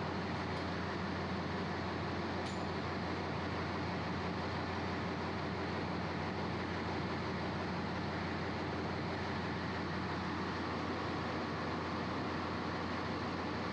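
Steady engine-room machinery noise aboard a ship, an even drone with a low hum, with two faint clicks in the first few seconds.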